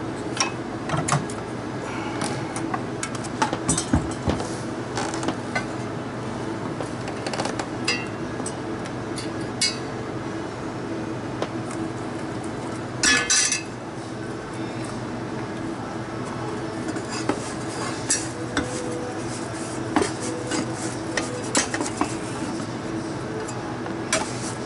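Metal parts clinking and clattering as a refrigeration condenser fan motor, its mounting bracket and fan blade are handled and taken off, with a brief scraping rush about halfway through, over a steady low hum.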